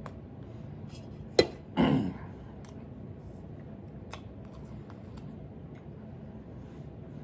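Close, quiet eating sounds: faint clicks of chewing and of handling the food. There is one sharp click about a second and a half in, and a short louder noise just after it.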